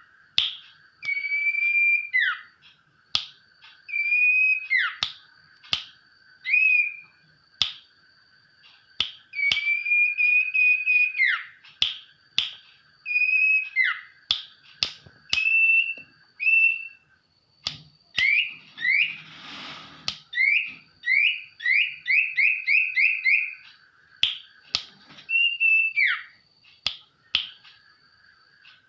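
A sirtu songbird singing continuously in whistled slurred phrases that imitate a white-rumped shama's song, with sharp clicks between the notes. About two-thirds of the way through there is a brief rushing noise, then a quick run of repeated notes.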